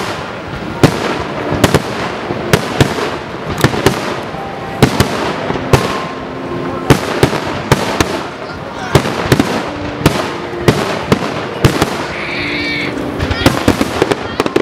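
Aerial firework shells bursting in a rapid, irregular barrage of sharp bangs, several a second.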